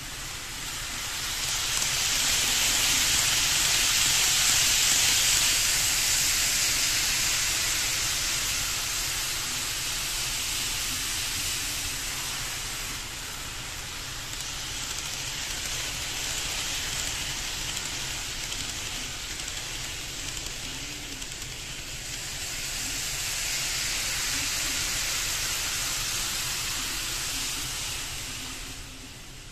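KATO N-gauge 500 series Shinkansen model train running along the track: a steady hissing whir that swells about a second in, eases around the middle, rises again and dies away near the end as the train passes.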